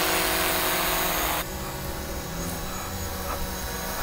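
DJI Mavic Pro quadcopter flying overhead on low-noise LED propellers, giving a steady buzzing hum. About a second and a half in, the hum suddenly drops to a quieter level and carries on.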